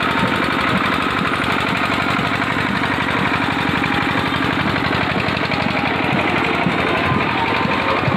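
An engine running steadily with a rapid, even rattling beat, loud and unchanging throughout.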